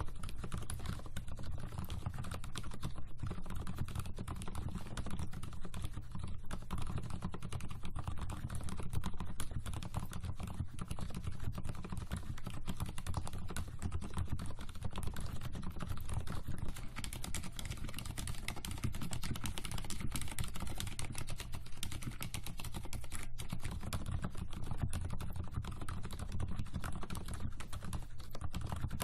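Fast, continuous typing on an Mstone Groove mechanical keyboard with silent red (low-noise linear) switches, a dense run of muted keystrokes. The switches are fully lubricated at first; about two thirds of the way in, the typing switches to alternating short stretches between the lubed board and the stock unlubed one.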